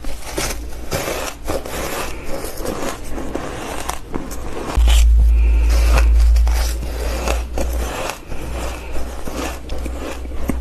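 Ice being crunched between teeth close to the microphone: a rapid, irregular run of crisp cracks and crunches. A deep low rumble swells about five seconds in and lasts about three seconds.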